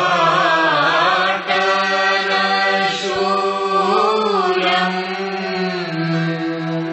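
Hindu devotional aarti chanting: a voice sings a wavering, ornamented line over a steady low held note. It comes in abruptly at the start.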